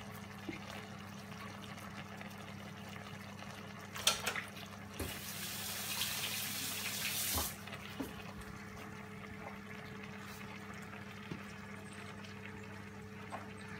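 Kitchen tap running for about two and a half seconds, starting and stopping abruptly, after a few knocks and clicks, over a steady low electrical hum.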